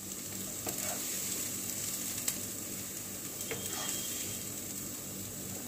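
Golden-fried chopped onions sizzling in butter as a wooden spatula stirs and scoops them out of a nonstick pan onto a steel plate, with a single light click a little over two seconds in.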